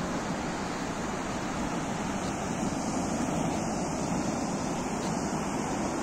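Sea surf breaking and washing up a sandy shore in a steady, continuous roar.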